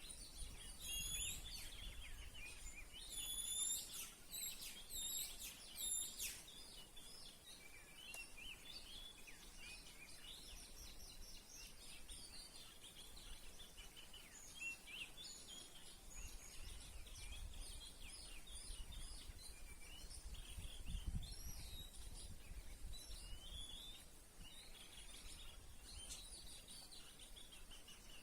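Songbirds singing and chirping, with a run of louder, clear whistled phrases in the first six seconds, then softer, busy chirping.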